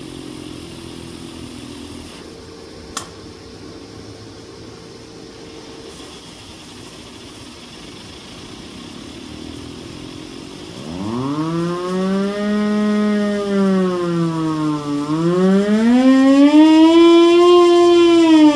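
Hand-crank siren with a blower feeding it, winding up about two-thirds of the way in. Its wailing pitch rises, holds, dips once, then climbs higher and starts to fall near the end, getting louder as it goes. Before the wind-up there is a quieter steady mechanical hum and a single click about three seconds in.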